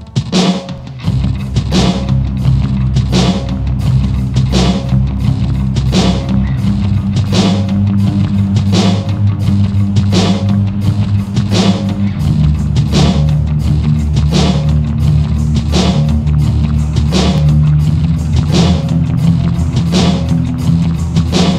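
Background music with a steady drum beat over a sustained low bass line that changes about halfway through.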